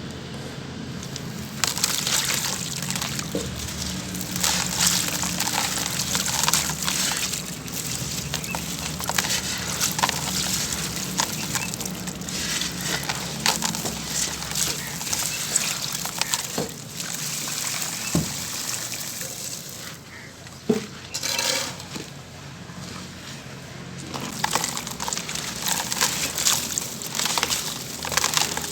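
Crushed charcoal pouring, a dense gritty crackle of many small crunches that thins out for a few seconds about two-thirds of the way through.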